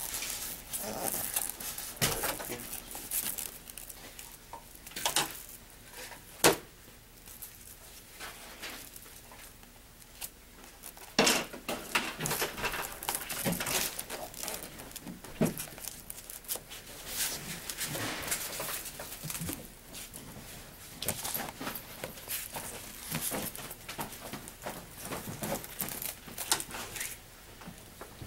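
Black tape being pulled off its roll and wrapped around a foam disc to make a wheel, with crinkly, scratchy handling noise and scattered sharp clicks, the loudest about six seconds in.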